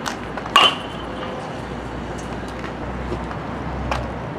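Metal baseball bat striking a ball once, about half a second in: a sharp ping with a short ringing tail. Fainter clicks come at the start and near the end, over steady outdoor background noise.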